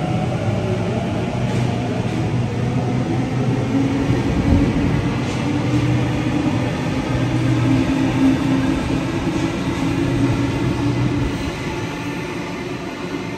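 Double-deck electric passenger train pulling out of an underground station platform into the tunnel, its motors whining up in pitch at first over a steady rumble of wheels on rail. The sound fades near the end as the train recedes.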